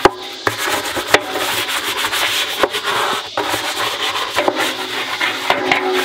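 Hand scrubbing the soapy inside of a top-loading washing machine tub: a steady scratchy rubbing, broken by scattered sharp knocks.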